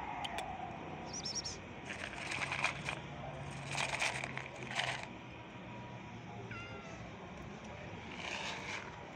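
Stray cats meowing: one long falling meow trails off in the first second and a short meow comes later, with a few scratchy rustling bursts in between.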